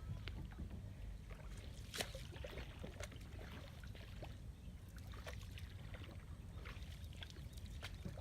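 Small boat on the water: faint splashes and lapping with scattered light knocks over a low steady rumble, and one sharper knock about two seconds in.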